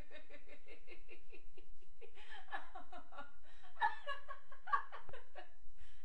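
A woman laughing in a fast run of short, repeated pulses, several a second, growing louder about two seconds in.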